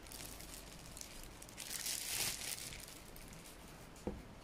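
Thin clear plastic bag crinkling and rustling as a laptop is slid out of it, loudest about two seconds in, with a single light knock near the end.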